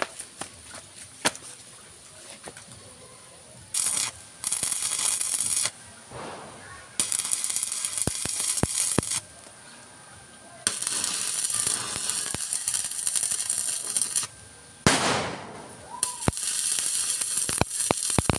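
Electric arc welding on a 9 mm steel-bar fish-trap frame: four welding bursts of a few seconds each, with sharp clicks and knocks in the gaps between them.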